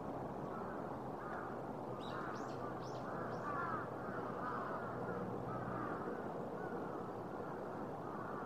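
Birds calling repeatedly, with a few high, thin, falling calls about two seconds in, over a steady background hum of city ambience.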